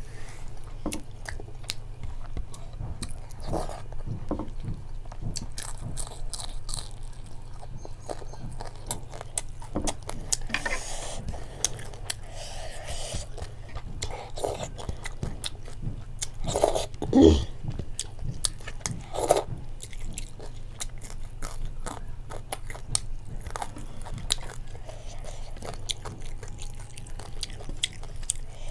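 Close-miked chewing and biting of rice and green jackfruit and shrimp curry eaten by hand, with many small crunches and mouth clicks; one louder crunch a little past halfway.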